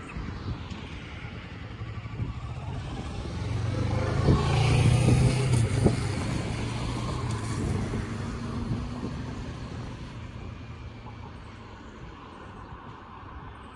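A road vehicle driving past, growing louder to a peak a few seconds in and then fading away.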